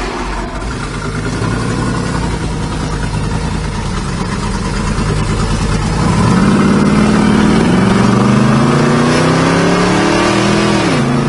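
A 1979 Dodge Lil Red Express's 360 V8, with a mild RV-type camshaft and long-tube headers, heard from inside the cab. It runs along steadily with a low rumble. About six seconds in it gets louder and climbs in pitch as the truck accelerates, then drops sharply near the end.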